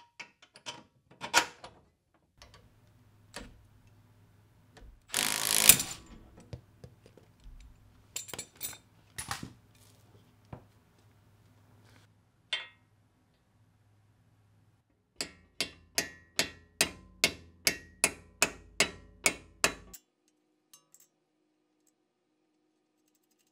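Hand tools working on a car's front suspension parts: scattered metal clicks and knocks, a short loud burst of noise about five seconds in, then a run of about fourteen sharp, evenly spaced strikes, roughly three a second, that stops abruptly.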